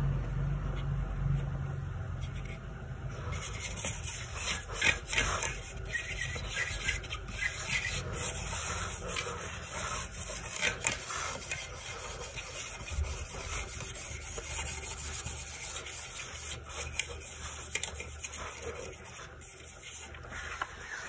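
Graphics card parts being rubbed and scrubbed clean: irregular scraping and rustling with a few sharper clicks. A low hum in the first few seconds stops.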